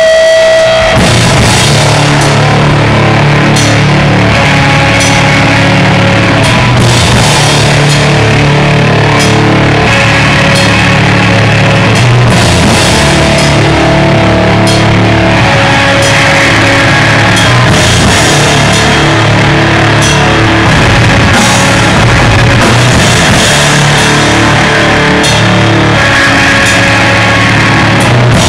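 Grindcore band playing live and very loud: heavily distorted guitar over fast drumming with crashing cymbals. It opens on a held tone that stops about a second in as the full band comes in.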